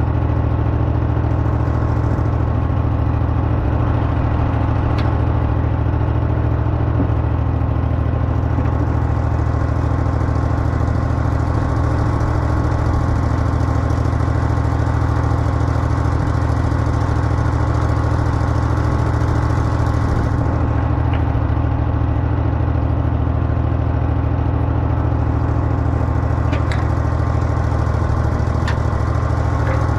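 Old skid steer's engine running steadily at a constant speed, a loud, even drone with a few faint clicks.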